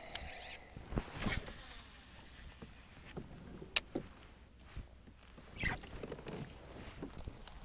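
Scattered clicks and knocks of gear being handled aboard a fishing kayak, with one sharp click about four seconds in and a short crackly rustle near six seconds.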